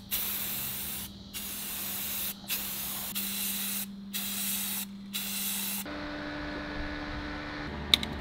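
Aerosol spray-paint can spraying an outboard motor's lower unit in five short bursts of hiss with brief pauses between them. The spraying stops about six seconds in, leaving a low hum and a couple of clicks.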